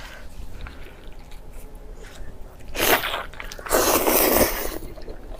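Close-miked ASMR eating: after a quiet start, a short loud bite just under three seconds in, then a longer, noisy bite-and-chew lasting about a second.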